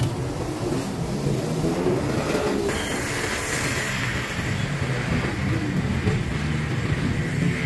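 Egg and sauce sizzling in a hot wok, with a brighter hiss after rice is tipped in about three seconds in, over a steady low rumble.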